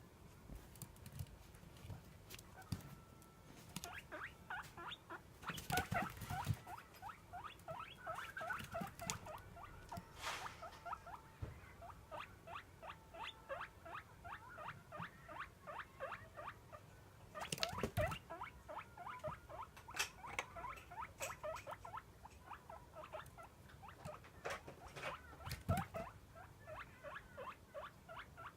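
Guinea pig wheeking to beg for food: long runs of short, high squeaks, several a second, with a few held whistles. A few knocks stand out above the calls.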